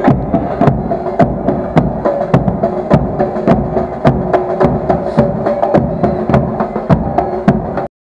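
Live drum music: a steady beat of sharp drum strokes, about two to three a second, over a steady held tone, cutting off suddenly near the end.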